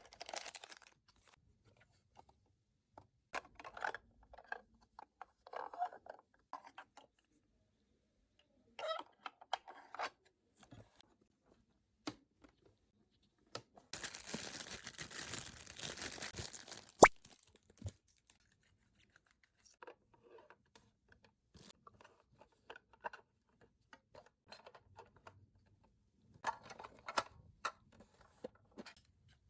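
Toy packaging being handled and torn open: short bursts of tearing and rustling separated by pauses. About halfway through comes a longer stretch of tearing that ends in a single sharp click.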